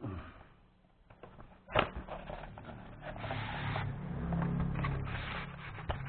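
Cardboard box and styrofoam packing insert being handled: a sharp knock about two seconds in, then a few seconds of scraping and rubbing as the styrofoam tray is slid out of its cardboard sleeve.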